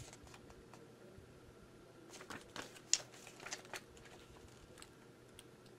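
Faint rustling of a paper booklet being handled and its pages turned, with a few light clicks, most of them about two to four seconds in.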